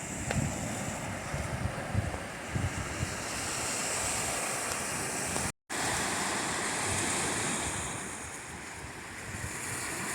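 Surf washing onto a sandy beach, with wind buffeting the microphone in low gusts during the first few seconds. The sound cuts out for a moment a little past halfway.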